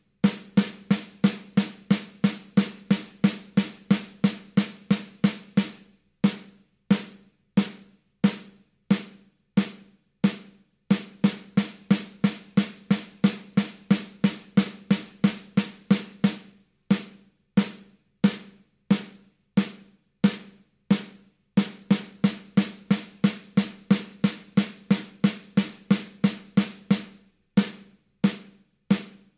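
Snare drum at 90 BPM, playing even single strokes. Stretches of eighth notes, three strokes a second, alternate with stretches of quarter notes, a stroke every two-thirds of a second, switching every two bars.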